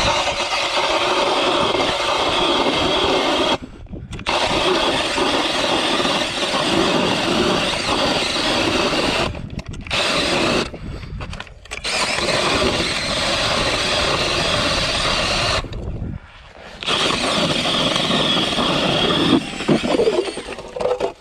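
Power ice auger boring a hole through pond ice, running steadily and stopping briefly four times before running on.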